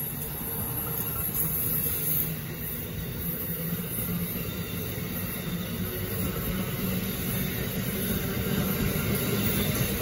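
Amtrak Northeast Regional passenger coaches rolling past: a steady rumble and rush of wheels on rail, getting a little louder near the end.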